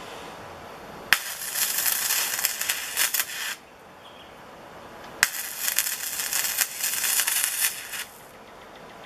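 YESWELDER 205DS wire-feed (MIG) welding arc on thin sheet metal, struck twice. Each strike starts with a sharp snap and crackles steadily for about two and a half seconds before cutting off, with the inductance at −10 for a softer arc.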